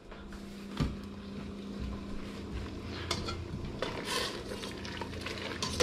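Large pot of pasta and green vegetables boiling on a gas stove over a steady hum, with a few light clinks of a metal utensil against the pot.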